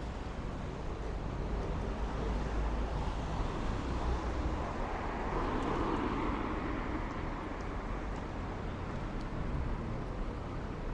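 Street traffic: a steady low rumble of engines and tyres, with one vehicle passing close by about halfway through, swelling and then fading.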